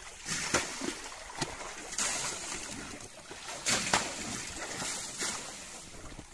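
Soapy water splashing and dripping as a shampoo-soaked cloth is wiped and squeezed over a motorcycle's seat and body, with several short, louder splashes.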